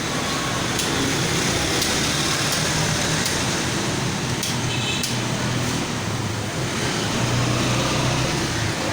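Steady whirring hum of a fan, with a few scattered clicks of computer keyboard keys being typed on.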